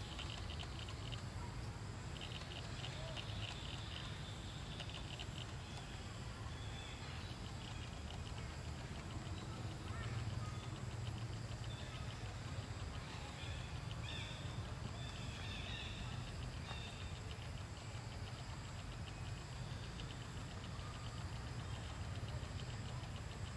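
Forest ambience: a high, rapidly pulsing trill that stops and starts over a steady low rumble, with a few short chirps partway through.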